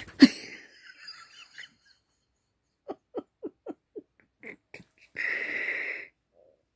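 A sharp knock and rustle of the phone against bedding at the start, then a dog breathing: about six short quick puffs at roughly four a second, followed by one longer breath lasting about a second.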